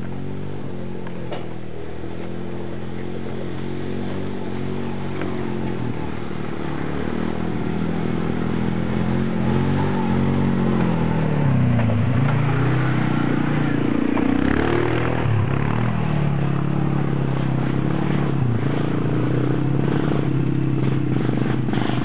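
Quad bike (ATV) engine labouring up a steep trail, its revs rising and dipping several times under load, growing louder from about eight seconds in as it approaches.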